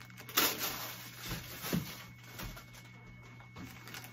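Light knocks and rustling of objects being handled and set down on a wooden table, a few separate taps spread over the seconds, over a faint steady hum.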